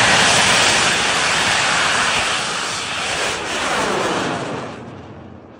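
Large Thai bang fai saen rocket launching: its black-powder motor gives a loud, steady rushing roar that dies away over the last second or so as the rocket climbs away.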